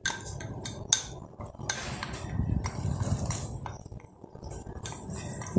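Chopped ham being tipped from a plastic bowl into a glass mixing bowl: a few sharp taps and clinks of the bowl against the glass, over the soft rustle of the food sliding in.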